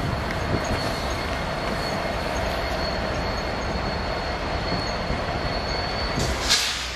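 Freight train of boxcars and tank cars rolling past on the rails: a steady rolling noise with a thin, steady high wheel squeal over it that stops near the end, just before a brief, sharper high screech.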